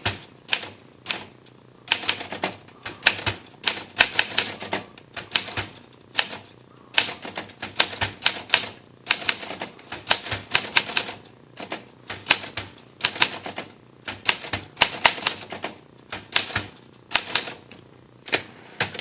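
1954 Olympia SM3 portable manual typewriter being typed on: quick runs of type-bar strikes against a fresh rubber platen, in bursts of a second or two with short pauses between.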